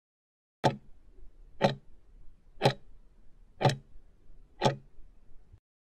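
Countdown timer sound effect: five sharp clock-like ticks, one a second, marking off the last five seconds of the timer.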